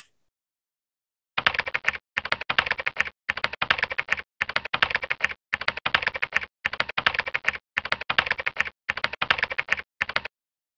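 Rapid keyboard typing: dense clicking in about eight short runs, each under a second, with brief pauses between them.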